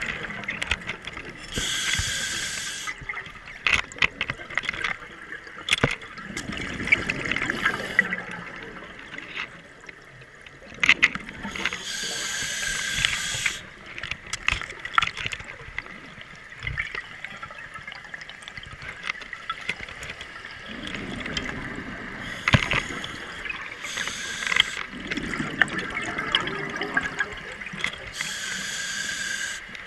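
Scuba diver breathing through a regulator underwater: slow hissing inhalations and four bubbling bursts of exhaled air, with scattered sharp clicks throughout.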